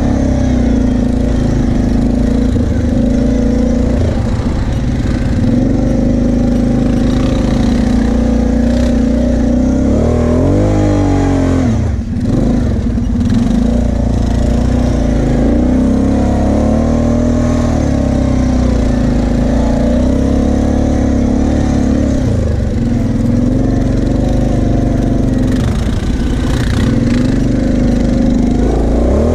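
Kawasaki KFX 700 V-Force quad's V-twin engine, heard from the rider's seat, revving up and down as it is ridden over sand, with a brief let-off of the throttle about twelve seconds in.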